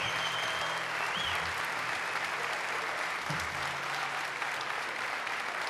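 Concert audience applauding steadily, with a few whistles near the start.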